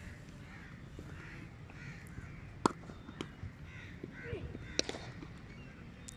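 Two sharp cracks of a cricket bat striking the ball, about two seconds apart, with birds calling in the background.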